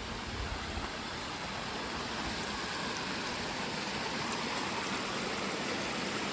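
Steady, even rushing noise, with a little low rumble about the first half-second.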